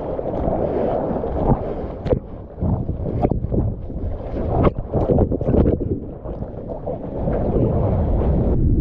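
Rushing, churning water of a barrelling ocean wave right at an action camera, with sharp splashes striking the camera and wind on the microphone. Near the end the hiss drops away and a muffled, low rumble remains.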